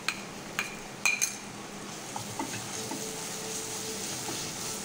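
Chopped onions, chillies and whole spices sizzling steadily in hot oil in a kadai, with a few sharp taps against the pan in the first second or so as garlic and ginger paste goes in, then a spatula stirring the mixture.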